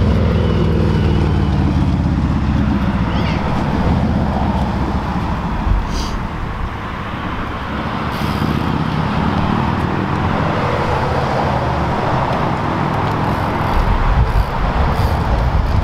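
Steady road traffic passing, with one vehicle's engine falling in pitch as it goes by near the start.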